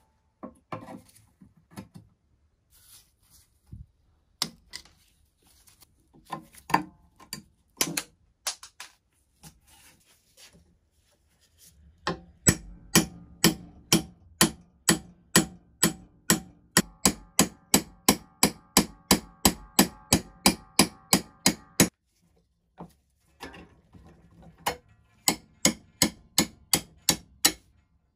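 Scattered clicks and taps of metal tools, then a steady run of hammer blows, about three a second, driving a rusty steel pin out of a cast-iron potato chipper frame, with metal ringing in the middle of the run. After a short pause, a second, shorter run of blows follows.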